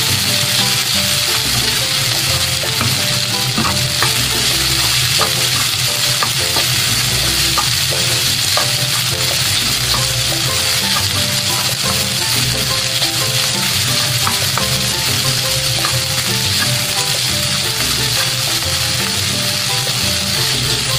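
Garlic fried rice sizzling in hot oil in a nonstick pan while a slotted spatula stirs and turns it, with a steady hiss and scattered light taps and scrapes of the spatula against the pan.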